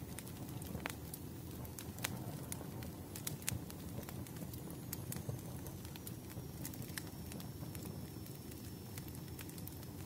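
Wood fire crackling: a steady low rumble of burning logs with irregular sharp pops and snaps.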